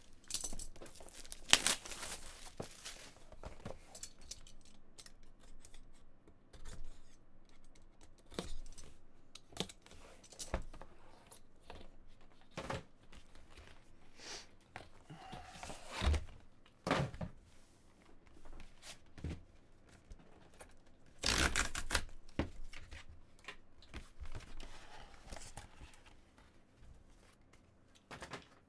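Plastic shrink wrap being slit and torn off a trading-card box, with several bursts of tearing and crinkling and small clicks and knocks as the box is handled and opened. The longest tearing burst comes a little past the two-thirds mark.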